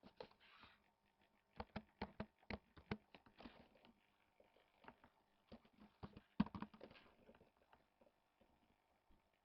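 Faint, irregular clicking and tapping of a computer keyboard and mouse, in two quick bunches of clicks with scattered single clicks between.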